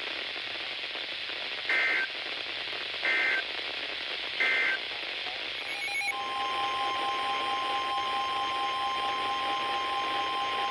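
Weather radio receiver hissing, then three short warbling data bursts about 1.4 s apart: the EAS SAME header that opens a new alert. About six seconds in, a steady long alert tone starts and sounds on to the end.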